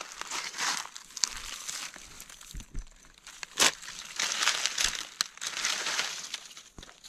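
Dry leaf litter rustling and crinkling in bursts under gloved hands clearing it away, with a few sharp clicks, the loudest about three and a half seconds in.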